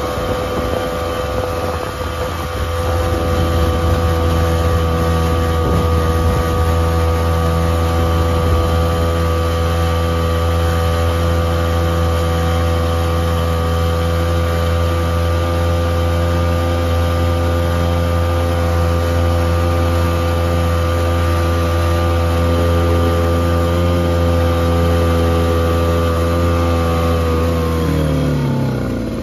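Mariner 3.3 hp single-cylinder two-stroke outboard motor running steadily at speed under way. Near the end it slows and its pitch drops sharply.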